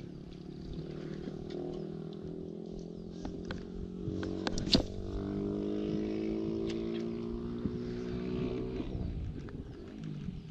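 A small engine running steadily, its pitch creeping up slowly before it fades out about nine seconds in, with a few sharp clicks over it.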